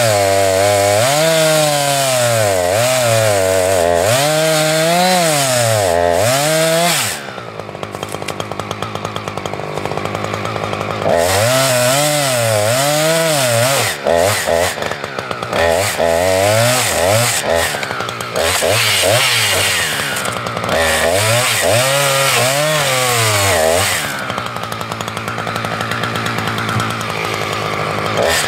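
Husqvarna 359 two-stroke chainsaw cutting into a tree trunk, its engine speed rising and falling as the chain bites. About seven seconds in it drops back to a low idle, then revs back into the cut some four seconds later. It eases off again near the end before revving up once more.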